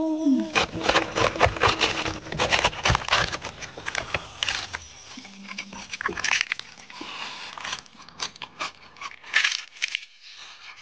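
Crisp roast pig skin and meat being torn apart and crunched: a dense run of sharp crackles and clicks that thins out in the last few seconds.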